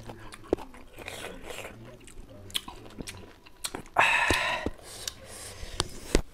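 People chewing raw lemon slices dipped in chili salt: wet chewing and mouth clicks, with a louder breathy burst lasting about half a second about four seconds in.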